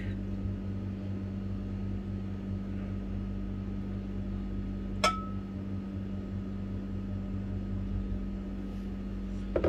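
A steady low hum, with a single clink about five seconds in as the glass mixing bowl is knocked, ringing briefly.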